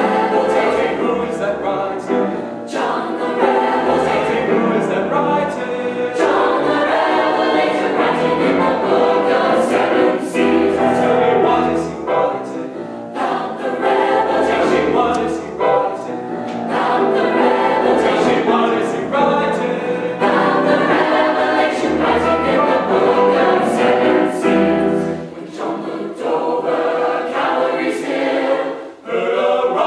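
Choir singing a sacred choral piece, with low bass notes underneath; the music dips briefly near the end.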